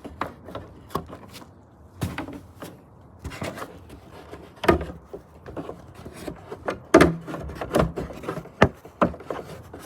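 Plastic engine cover being pushed down and knocked into its mounts: a series of irregular knocks and clunks, the loudest about five and seven seconds in.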